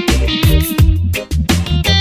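Background music with a steady beat: a reggae-style band track with guitar and bass.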